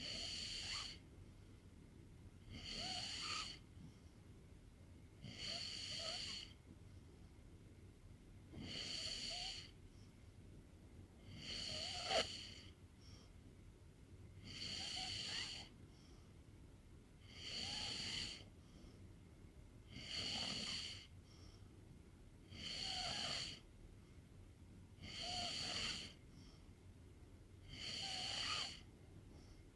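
A sleeping pet snoring in a slow, regular rhythm, one snore about every three seconds, each with a hiss and a faint whistle. A brief sharp click comes about twelve seconds in.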